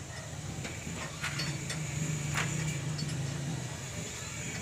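A low, steady engine-like hum that swells about halfway through, with a few light metallic clinks from a tapered roller bearing being turned in greasy hands while it is packed with grease.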